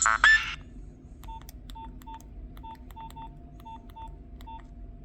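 A ringtone cuts off about half a second in, then a Nokia 6010 mobile phone's keypad beeps about ten times over some three seconds, short identical beeps each with a click of the key, as its buttons are pressed.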